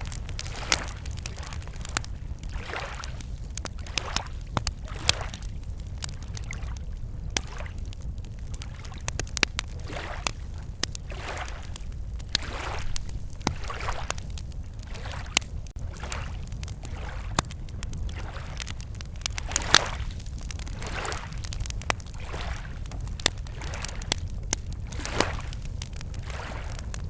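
Wood campfire crackling with frequent sharp pops, over small lake waves lapping at the shore in soft washes every second or two.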